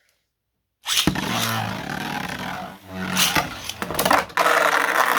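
Beyblade tops launched into a stadium, starting suddenly about a second in with a sharp hit, then a loud spinning, scraping whir with several sharp clashes as the tops collide.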